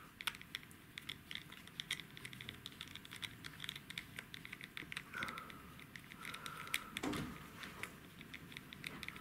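Small screwdriver working a tiny screw in the plastic frame of camera glasses: faint, irregular light clicks and scratches, with a couple of brief squeaks about halfway through.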